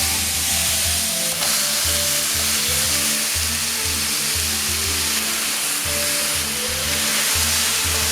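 Marinated pork sizzling steadily in a hot frying pan as it is stir-fried, under background music.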